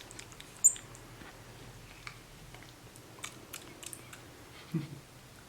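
A small pet monkey eating a piece of orange: soft, wet chewing and smacking clicks, with one short, sharp high squeak about a second in and a brief low sound near the end.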